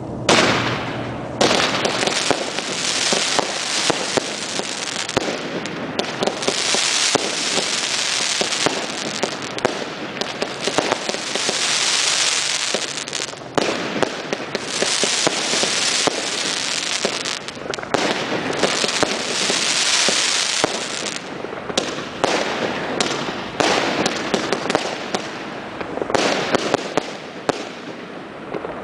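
Consumer aerial fireworks going off in rapid succession: dense popping and crackling bursts, almost without a break, swelling several times into a few seconds of continuous crackle.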